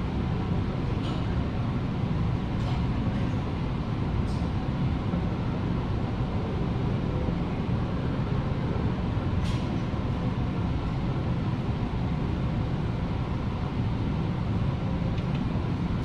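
A steady, low mechanical drone from some running machine in the shop, with a few faint clicks over it.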